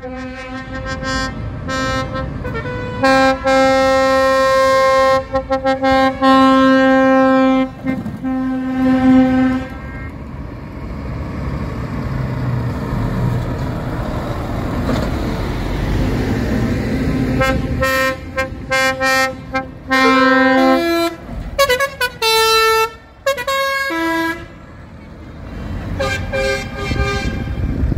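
Truck air horns sounding repeatedly as trucks drive out: long held blasts in the first ten seconds, then a passing diesel truck's engine and tyres, then a run of shorter horn blasts that jump between notes near the end.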